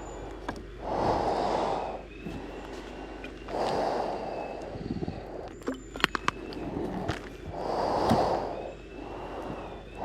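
A person's breathing close to the microphone, slow and regular, one breath every two to four seconds. About six seconds in come a few sharp clicks and clinks of handled equipment.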